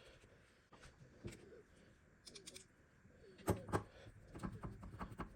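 Light clicks and knocks of small metal parts and tools being handled while the mixer's gearbox is put back together. There are two sharper knocks about three and a half seconds in, followed by a quick run of clicks.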